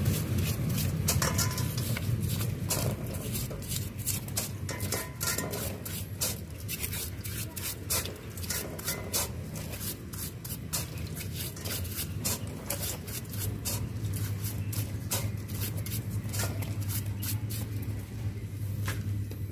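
A brush scrubbing a greasy CV joint in a metal basin of diesel: many short scratchy strokes and clicks with wet splashing, over a steady low hum.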